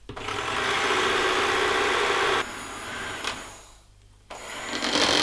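Electric hand mixer running, its beaters whipping cream in a plastic jug with a splash-guard lid. The sound drops off sharply a little before the middle, goes nearly quiet for a moment, and starts up again near the end.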